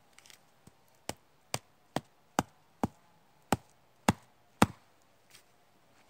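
A short wooden log used as a mallet knocks a tent peg into the ground, eight sharp strikes at about two a second.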